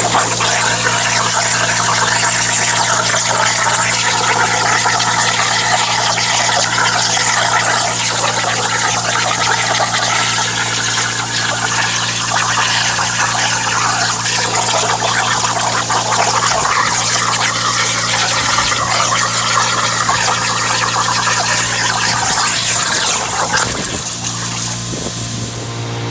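Hypertherm Powermax45 XP plasma torch cutting steel on a CNC plasma table: a loud, steady hiss of the arc and its air jet over a steady low hum. The hiss dips slightly near the end.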